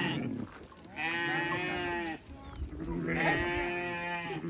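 Two long bleats from a mixed flock of sheep and goats, the first about a second in and the second starting just before the three-second mark.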